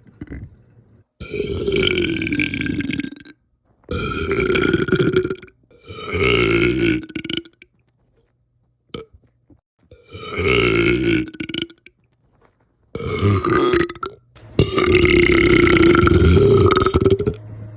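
A person belching six times in a row, each a loud, drawn-out voiced burp with a pause between. The last burp is the longest, about three seconds.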